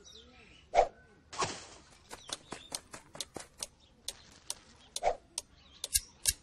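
Cartoon sound effects of quick, light tapping footsteps, with two louder soft thumps, about a second in and about five seconds in.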